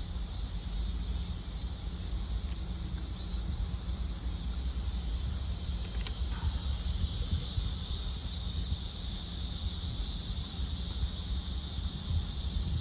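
Insects buzzing in a steady, high-pitched chorus that grows louder about halfway through, over a low rumble.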